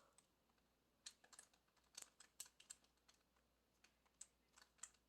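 Faint, irregular plastic clicks of a 3x3 Rubik's cube as its layers are turned, about a dozen short clicks scattered through the moment.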